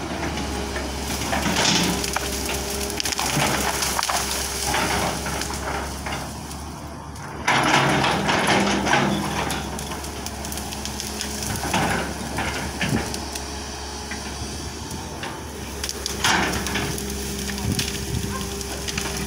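Excavator working in thick brush: its diesel engine runs steadily underneath while the bucket tears and crushes vegetation, giving repeated crackling and snapping of branches and stems. The loudest bout of crackling comes about seven seconds in.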